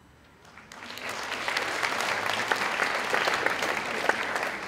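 An audience applauding with many hands clapping together. The clapping starts about half a second in and swells over the next second.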